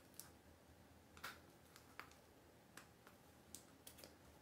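Near silence, with faint, scattered light clicks and taps, about seven in all, as a sequined slip-on flat is handled and turned over.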